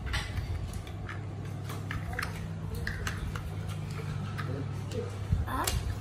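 Large plastic toy building blocks clicking and knocking as they are handled and pressed together, in scattered light taps over a steady low hum.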